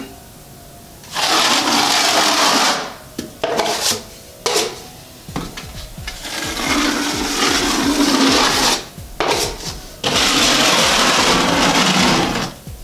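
Steel drywall knife scraping wet joint compound along a wall corner, in a few long strokes of one to three seconds each with short pauses between, as a first coat of mud is skimmed over repaired corner bead.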